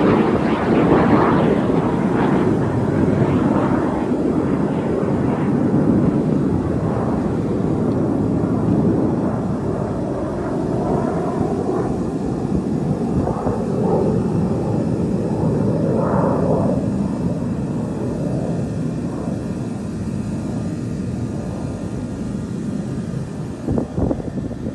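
Display jets flying overhead at an air show: a loud, steady jet roar, strongest in the first few seconds, with the pitch sliding up and down near the middle as aircraft pass.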